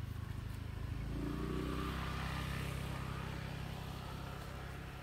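A motor vehicle's engine running nearby as a steady low hum. It grows louder about a second in and then slowly fades, as if the vehicle is passing.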